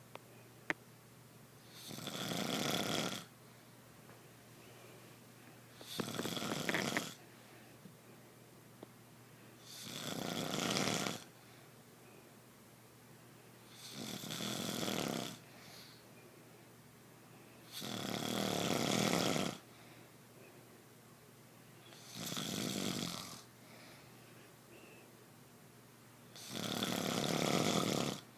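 A person snoring: seven long snores about four seconds apart, each lasting a second or so, with a couple of sharp little clicks between the first snores.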